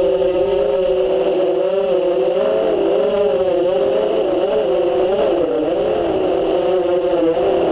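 FPV quadcopter's motors and propellers whining in flight, heard from the onboard camera, the pitch rising and falling continually as the throttle changes.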